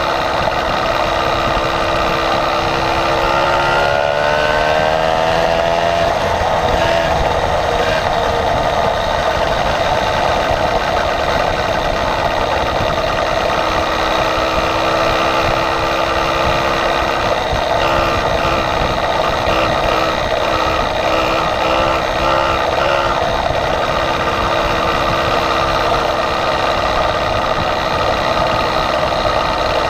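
Small motorized-bicycle engine running under way, its pitch rising over a few seconds as it speeds up and then holding steady, with wind rushing over the microphone.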